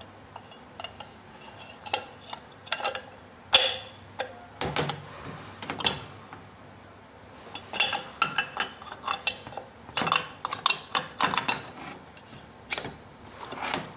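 Metal parts of a disassembled air-conditioning compressor clinking and knocking as they are handled and turned over by hand. Irregular clicks and clanks, some in quick clusters, with one sharper knock a few seconds in.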